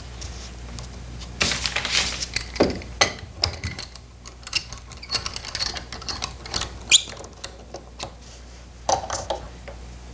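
Metal clamps being fitted and tightened by hand on a glued joint: a run of irregular light clicks, clacks and metallic clinks, a few of them ringing briefly, over a steady low hum.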